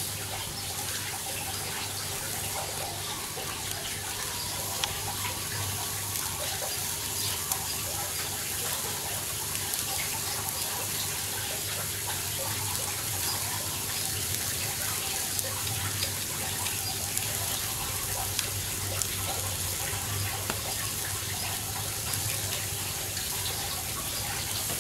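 Turkey breast sizzling on a grill over glowing hardwood charcoal: a steady hiss with small scattered crackles.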